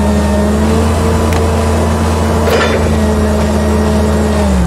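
A remote-controlled toy tower crane's electric motor running with a steady whine, winding down near the end.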